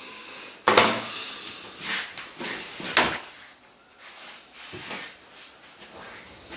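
Two sharp knocks, like a drawer or cupboard being shut, about a second in and about three seconds in, with softer clattering and rustling between them.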